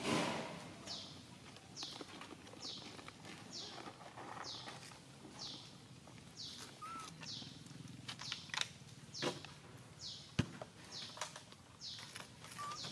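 A bird repeating a short, high chirp that falls in pitch, about three every two seconds. A brief rush of noise at the start, and a few sharp clicks in the second half.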